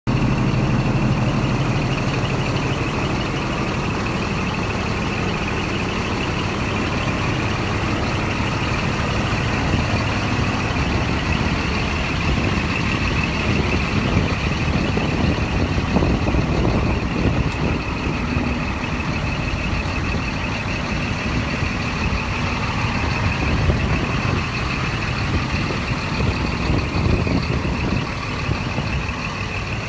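Scania R 420 truck's six-cylinder diesel engine idling steadily, with a steady high tone above the rumble.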